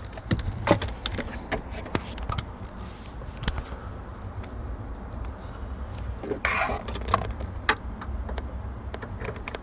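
Light clicks, taps and jingles of metal and plastic parts being handled while a steering-column combination switch is fitted, with a brief louder noise about six and a half seconds in.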